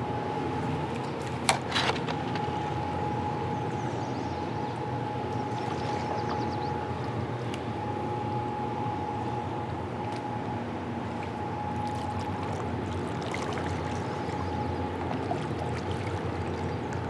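Running river water washing and trickling around a kayak as it is paddled, with two sharp knocks close together about a second and a half in and a faint steady tone underneath.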